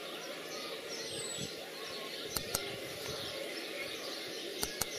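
A brood of ducklings peeping, many short falling peeps overlapping in a continuous chorus. Two pairs of sharp clicks stand out, about two and a half seconds in and near the end.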